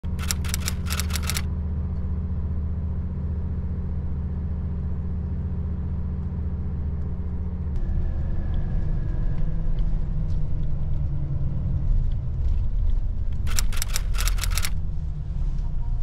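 Vehicle engine running, a steady deep hum that turns rougher and more uneven about halfway through. Two short bursts of rapid clicks come near the start and again near the end.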